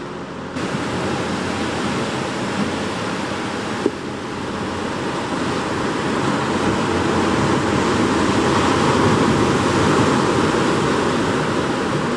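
Sea surf washing against rocky cliffs: a steady rushing that swells louder in the second half.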